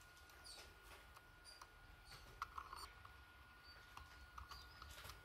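Faint small clicks and taps of metal tweezers against a SOIC-8 BIOS flash chip and the plastic programmer socket as the chip is seated, a cluster of sharper clicks about halfway through. A faint steady high tone sits under it.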